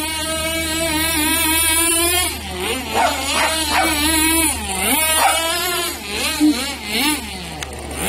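Radio-controlled car's motor whining. Its pitch holds steady for about two seconds, then repeatedly dips and climbs again as the throttle is eased off and reopened.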